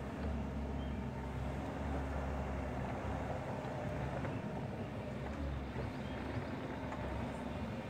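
Bobcat E42 compact excavator's diesel engine running steadily as it swings its bucket and spreads dirt.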